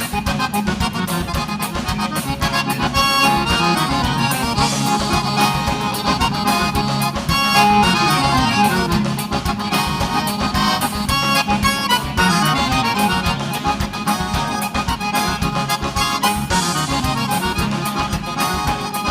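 Live gaúcho dance music, an instrumental passage led by accordion over a steady beat and bass line.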